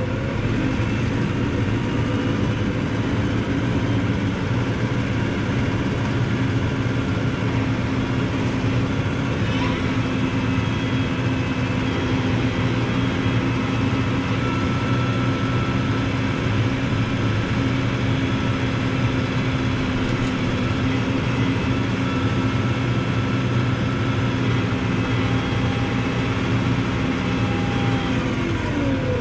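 Small tractor's engine running steadily at working speed, rising in pitch at the start and dropping back near the end.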